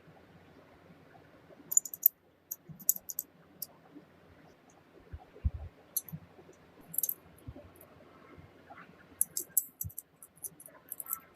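Small metal pistol parts being handled, giving clusters of light, sharp metallic clicks and ticks, with a few dull low knocks in between.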